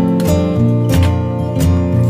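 Instrumental background music led by a plucked acoustic guitar, with a steady run of notes and chords.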